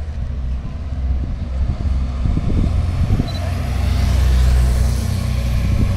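Police escort motorcycles approaching along the street, their engines growing louder over the second half over a steady low rumble.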